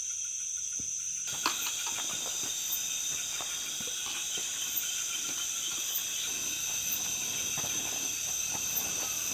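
Night-time insect chorus: a steady high-pitched trill. About a second in, the background thickens with scattered faint clicks and rustles.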